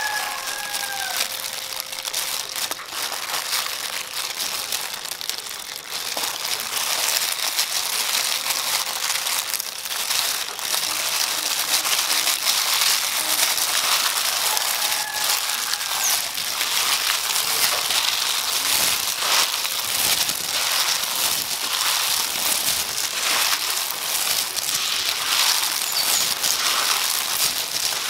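Thin plastic food-prep glove crinkling as a hand tosses and squeezes grated coconut, cucumber slices and bean sprouts with seasoning, a continuous crackly rustle that gets louder about six seconds in.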